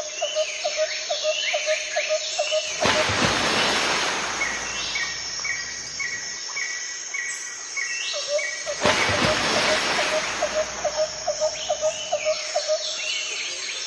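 Birds calling over a steady high insect drone: rapid trains of short repeated notes, about four a second, and a run of higher evenly spaced notes. Twice a loud rush of noise swells up and fades.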